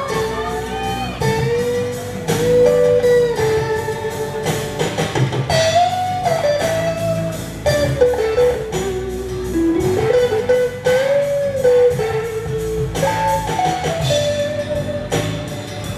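Live rock band playing an instrumental stretch: an electric lead guitar plays a melody with bent notes over bass guitar and a drum kit.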